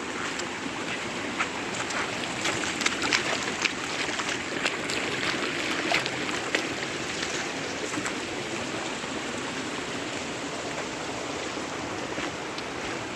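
Flowing water, a steady rush like a small mountain stream, with scattered small clicks and taps, most of them in the first half.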